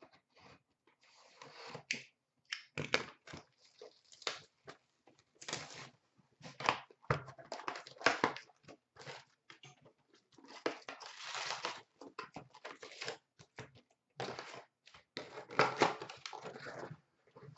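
A cardboard hobby box of hockey cards being torn open by hand and its wrapped packs pulled out and stacked, with tearing and rustling of cardboard and pack wrappers in irregular bursts.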